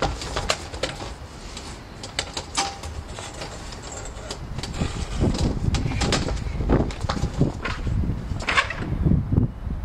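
Irregular knocks, clicks and scrapes of metal folding chairs and a table being moved and sat on over stone paving, with footsteps. Heavier thumps and scrapes crowd together in the second half.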